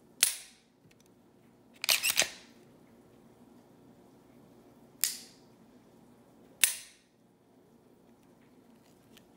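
Sharp metallic clicks from a Glock 19 pistol's trigger mechanism as the trigger is dry-fired. A single click comes first, then a quick run of three clicks around two seconds in, then two more single clicks, each with a brief ring.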